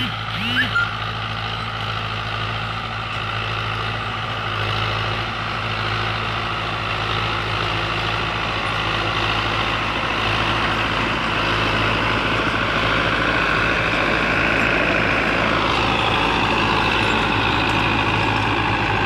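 Diesel engine of a Russian 510 tractor running steadily under load while it drives a rotavator tilling the soil. The sound grows louder in the second half as the tractor comes closer.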